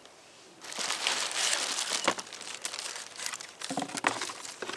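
Packing material in a shipping box being rummaged through by hand: crinkling and rustling with small knocks, starting about half a second in.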